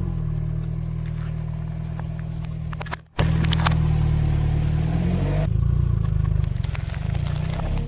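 Car engine running at low revs as its tyre rolls slowly over objects, crushing them with scattered crackles and crunches. The sound cuts out briefly about three seconds in and starts again.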